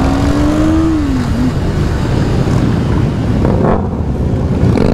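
Many motorcycle engines running together in a slow group ride, close to the rider's own Honda CB500. About a second in, one engine rises in pitch and then drops back.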